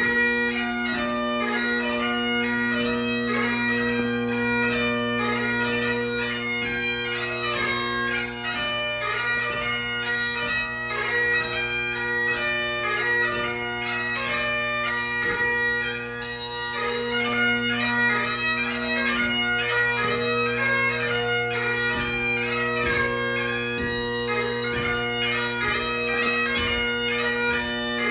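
Great Highland bagpipe played solo in a competition march, strathspey and reel: steady drones sound under a busy chanter melody.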